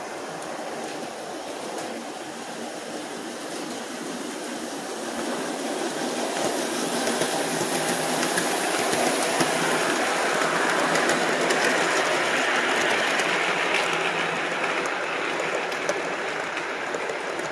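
O-scale two-rail model passenger train cars rolling on the track, a steady rumble with fine clicking from the wheels. It grows louder as the cars pass close, loudest in the middle, then eases off near the end.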